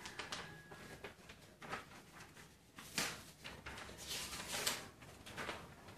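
Sheets of paper rustling as they are handled and turned over, in several short bursts.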